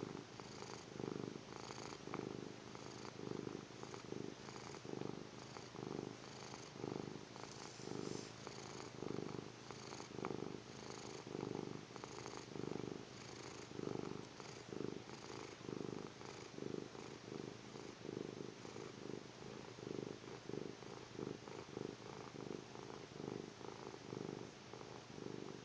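A cat's rhythmic rumbling breathing in steady, even pulses, which the owner calls snoring.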